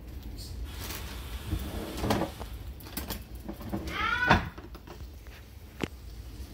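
Butter and brown sugar starting to sizzle in a hot frying pan, with a few sharp knocks of handling. About four seconds in, the loudest sound is a brief voice-like call that rises and falls in pitch.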